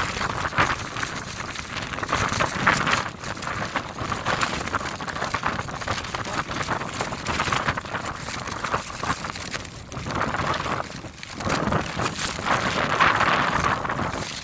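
Snowstorm wind gusting over the microphone: a rough rushing noise full of fine crackle that swells and eases every few seconds.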